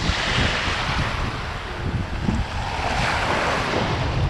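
Shallow seawater washing and sloshing, with wind rumbling on the microphone; the hiss of the water swells about half a second in and again around three seconds in.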